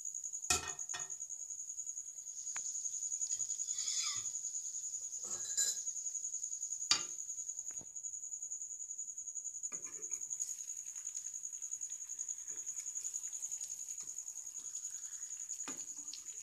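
A metal spoon scraping and clinking against a kadhai as pieces of chicken tikka are turned over. There are a few sharp clinks, one just after the start, one about halfway and one at the end, over a steady high-pitched pulsing trill.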